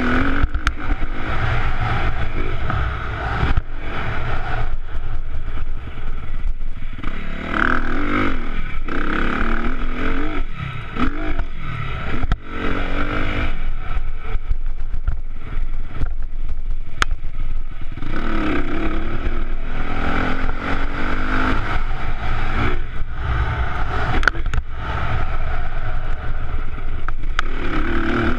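Honda CRF250R dirt bike's single-cylinder four-stroke engine revving up and falling back again and again under riding load, with a few sharp knocks from the bike over the bumps.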